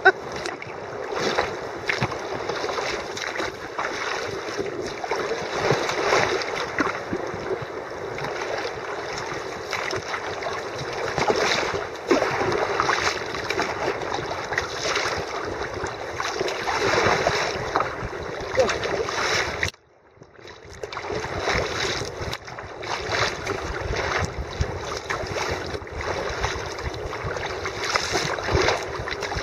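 Sea kayak paddled through a choppy following sea: water splashing and slapping against the hull and paddle, with some wind on the microphone. About two-thirds of the way through the sound cuts out suddenly for about a second, then comes back.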